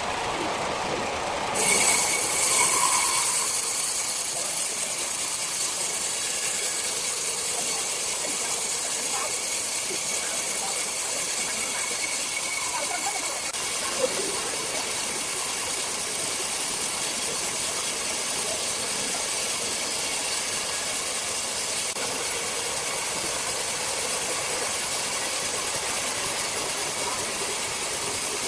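Large circular saw cutting through rosewood: a steady, high-pitched noise that comes in sharply about two seconds in and then holds evenly.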